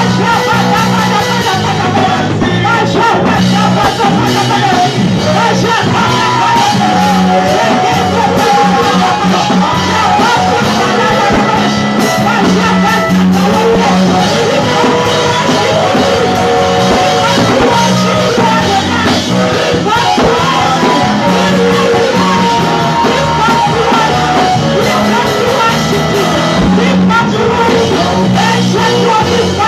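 Live band music with singing, loud and steady, with a strong bass line and drums.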